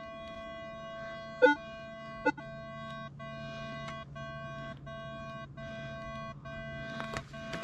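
Metal detector sounding a steady buzzing tone with brief dropouts as its coil sweeps over rock. Two sharp knocks come about one and a half and two and a quarter seconds in.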